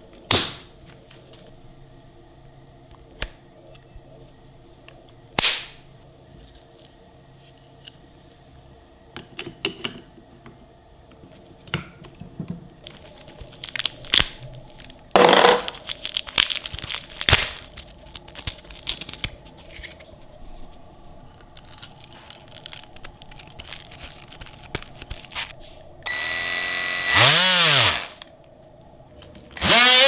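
Handling clicks and plastic snaps from a Parkside PKGA 20-Li C2 cordless combination tool as its multi-sander head is fitted, with a louder rasping as a sanding sheet is pressed onto the pad about halfway through. Near the end the oscillating sander motor is triggered briefly, whining up and back down, then starts running steadily.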